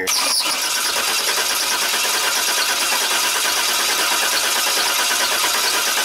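Starter cranking a 2005 Chevrolet Express van's 6.0-litre V8 with a steady, even rhythm, the engine not catching: the van's crank/no-start fault.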